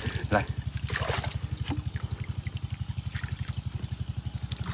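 A small engine running steadily, an even low putter of about ten beats a second, with water trickling.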